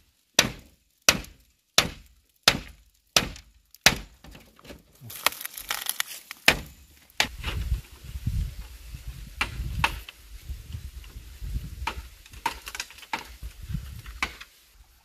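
Sharp blows on a wooden fence rail, evenly spaced about every 0.7 s. After about five seconds they give way to irregular knocks and clatter over a low rumble.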